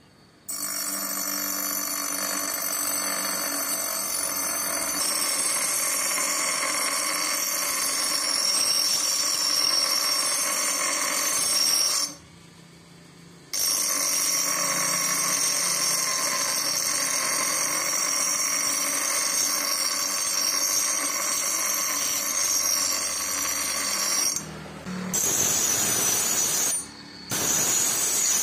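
Steel axe head being ground against a spinning bench grinder wheel: a steady, high-pitched grinding whine of metal on the abrasive wheel. It cuts out briefly about twelve seconds in and twice near the end.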